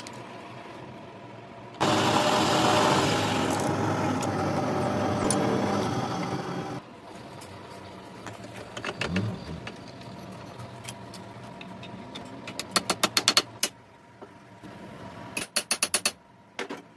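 Workshop machine and tool noise: about five seconds of a loud, steady grinding-like machine sound, then two short runs of fast, sharp clicking, several clicks a second.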